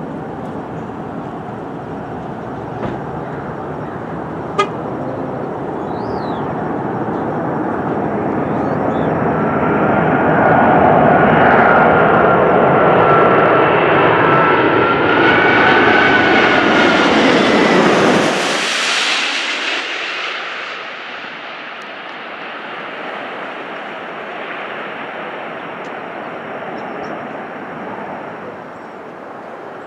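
Jet noise from the Airbus A380-800's four Rolls-Royce Trent 900 engines on final approach, building to a loud pass low overhead with a steady fan whine above the rumble. About eighteen seconds in, the sound changes abruptly to a quieter, more distant jet rumble as the airliner flares over the runway. There is one sharp click early in the pass.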